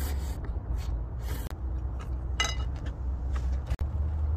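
A person slurping noodles, with short bursts of slurping near the start and again about a second in, then chewing, over a steady low rumble.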